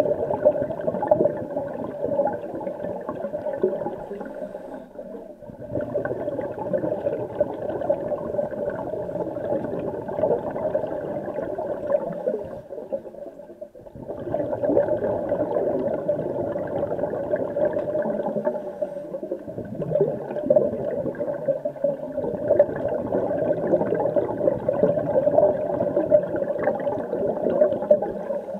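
Muffled underwater noise of a swimming pool heard through a submerged camera: a continuous rushing gurgle that drops away briefly twice.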